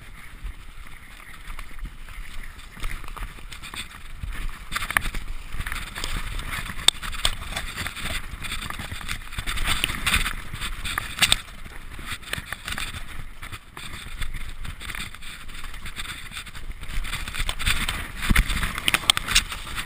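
Mountain bike riding fast down a dirt forest trail covered in dry leaves: tyres rolling over dirt and leaves, with frequent clicks and knocks from the bike over bumps. It gets louder about four seconds in as the pace picks up.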